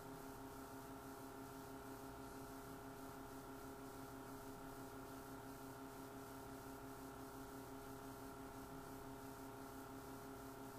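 Faint steady electrical hum made of several constant tones over a light hiss, with nothing else heard.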